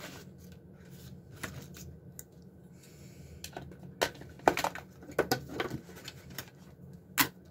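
Handling sounds at a craft table: a sheet of paper being laid down and a small glitter jar being picked up and set down, giving scattered clicks and taps, the sharpest about four and a half seconds in and again near the end.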